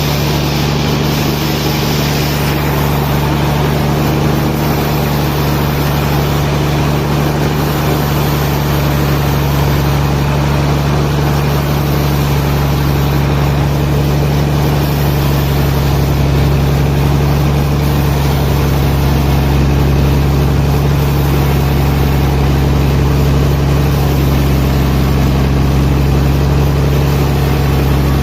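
A machine's engine running steadily: a low, even drone that keeps the same pitch.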